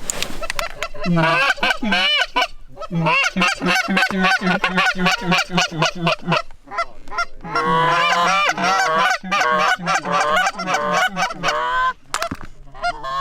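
Canada goose honking and clucking, loud and rapid, many honks in quick succession, easing off briefly twice before picking up again.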